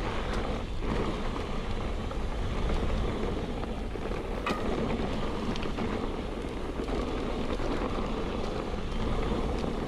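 Mountain bike riding a dirt trail: wind rushing over the microphone and tyres rolling over the ground, with a few sharp clicks and rattles from the bike.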